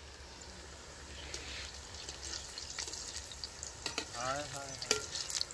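Chicken pakoras deep-frying in hot oil in a karahi: a steady sizzle that builds from about a second in, with a few light clicks.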